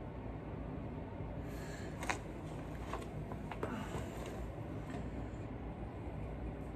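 A few small sharp clicks and taps from handling a small model steam locomotive's chassis and gears while oiling them, the loudest about two seconds in, over a steady low background hum.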